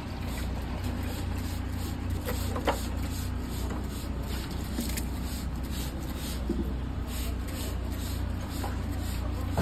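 Hand trigger spray bottles squirting liquid colour onto carved cement rock in a quick run of short hissing squirts, about two or three a second from about three seconds in. A steady low machinery hum runs underneath.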